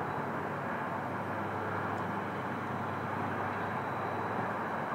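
RC model pirate ship's electric motor and propeller running with a steady whirring noise, with a faint high whine in the second half.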